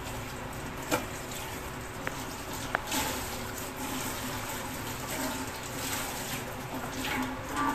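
Tap water running into a stainless steel sink while a cloth is rubbed and wrung by hand in the stream, with splashing. Two short sharp knocks about a second in and just before three seconds.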